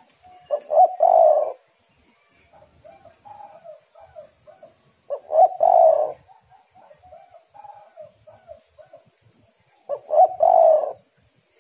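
Spotted dove cooing: three loud, short cooing phrases about five seconds apart, with softer, quieter coo notes in between.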